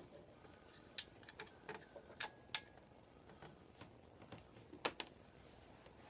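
Irregular light clicks and taps of metal tools and motorcycle parts being handled, about a dozen in all; one sharp click about two and a half seconds in rings briefly.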